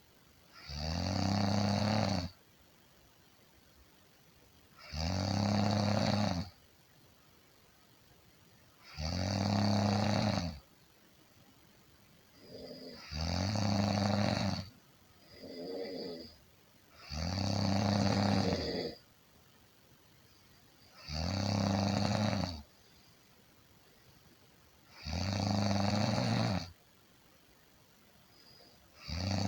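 A person snoring in a steady rhythm: a loud, buzzing snore about every four seconds, each lasting a second and a half. A shorter, weaker breath sound falls between two snores just after the middle.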